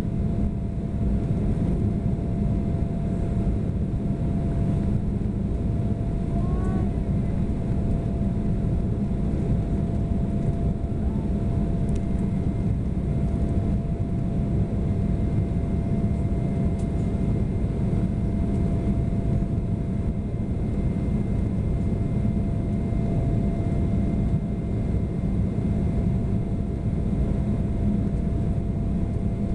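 Steady cabin noise inside an Embraer 175 airliner climbing after takeoff: a low, even rumble of its underwing CF34 turbofan engines and the airflow, with a thin steady whine over it.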